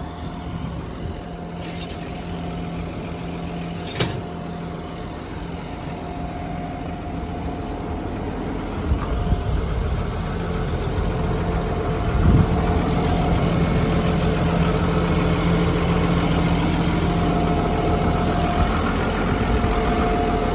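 Caterpillar D6N bulldozer's diesel engine idling steadily, with one sharp click about four seconds in. The engine sound grows louder from about nine seconds on.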